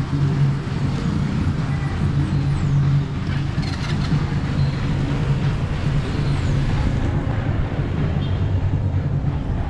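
Street traffic with small motorcycle engines running, a steady low hum under general street noise.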